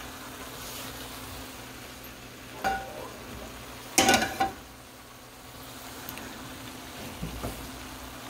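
Shrimp and vegetables frying quietly in a stir-fry pan, with metal clanks of the pan and a utensil, once about three seconds in and again, louder, about a second later, then a few small knocks near the end.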